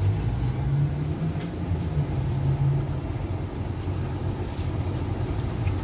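Car running, heard from inside the cabin: a steady low engine hum over road or engine rumble, its pitch shifting slightly.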